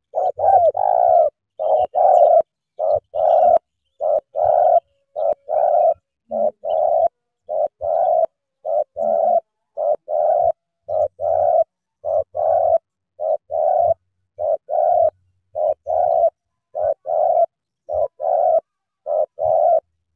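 Spotted dove cooing over and over: loud two-part coo phrases repeated at an even pace, about one every second and a bit.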